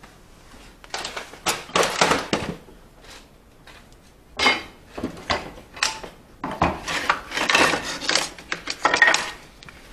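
Irregular knocks and clatter of hard objects being handled and set down, in clusters with short quiet gaps between them.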